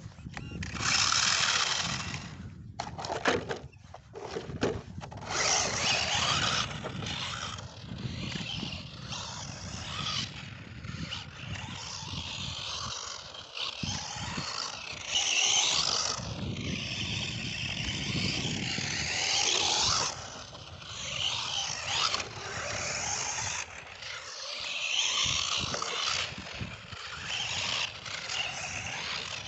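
Tamiya TL-01 radio-controlled car's electric motor and drivetrain whining, rising and falling in pitch with the throttle, as it drives on loose dirt, with tyres scraping and crunching on the grit.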